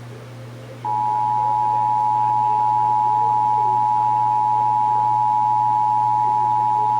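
Emergency Alert System two-tone attention signal, two steady tones sounded together, starting about a second in and holding unchanged. It is the alert tone that follows the data header bursts, here part of a Required Monthly Test. A faint low hum runs underneath.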